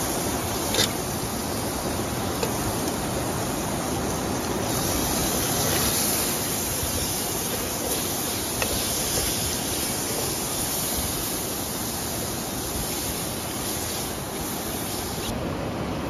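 Steady rushing roar of a nearby waterfall, with a few light clicks.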